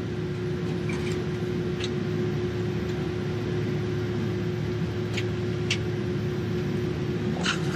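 Cabin noise of a Boeing 767-300ER taxiing: its wing-mounted turbofan engines running at low taxi thrust, a steady rumble with a constant mid-pitched hum. A few light clicks or rattles come through, the loudest near the end.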